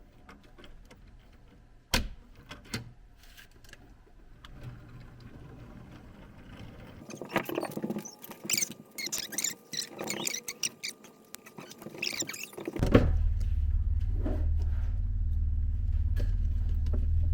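Lego bricks clicking as pieces are pressed together, then a run of scratchy plastic rattling and rubbing. About two-thirds of the way through, the sound cuts to a loud, steady low hum.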